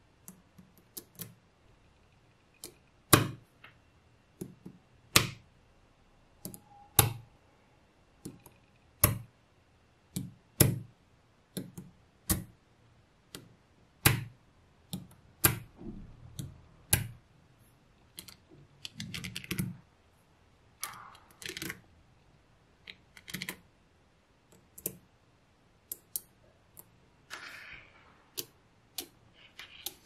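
Small magnetic balls clicking and snapping together one at a time, irregular sharp clicks every second or two. In the second half there are some short rubbing or sliding sounds as the balls are shifted into place.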